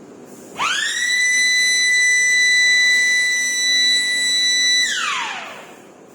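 Electric drive motor whine that spins up quickly to a steady high pitch, holds for about four seconds, then winds down. This is the furnace's tilt drive running one step of its angle sequence.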